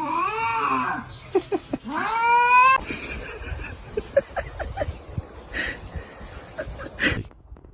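A domestic cat meowing in long drawn-out calls, three of them, the last one rising in pitch; after about three seconds it gives way to a quieter stretch of scattered light clicks, with one sharp click near the end.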